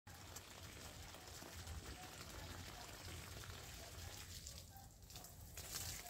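Faint rustling and crackling of leaves and twigs as shrubs are handled, with many small clicks.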